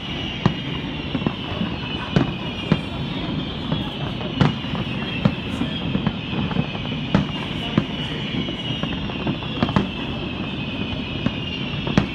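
Fireworks display bursting: irregular sharp bangs, about one to two a second, over a steady high whine.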